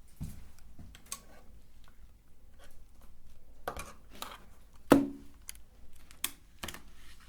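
Irregular clicks and knocks of hard candy against a metal meat grinder, with one loud clunk about five seconds in.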